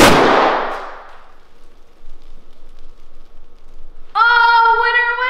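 A confetti-filled balloon popping with a sharp bang, its noise fading away over about a second. About four seconds later a run of held pitched notes starts.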